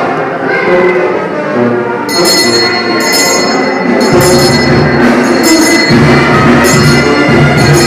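Music with bells jingling in bursts about once a second, starting about two seconds in; deeper low notes join about four seconds in.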